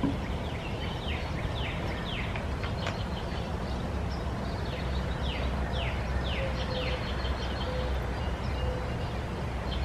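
Garden ambience: a steady low rumble with a bird repeating short, falling chirps, a couple of notes at a time, through most of it.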